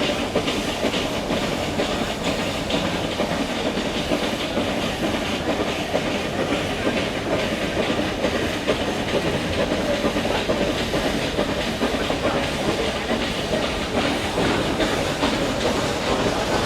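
Nilgiri Mountain Railway toy train running steadily, heard from inside a carriage: a continuous rattling clatter of wheels on the rails, with a hissing rush.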